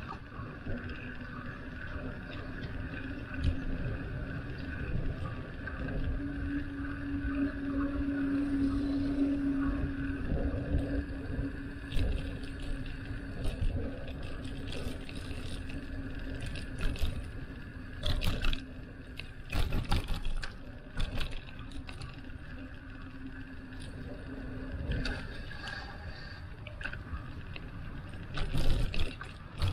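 Riding noise from a bicycle on the move: a steady low rumble and hum, with sharp knocks and rattles scattered through the second half.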